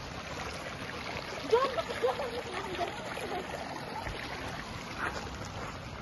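Steady rushing outdoor noise from wind and the open river, with faint distant voices calling out briefly about a second and a half in.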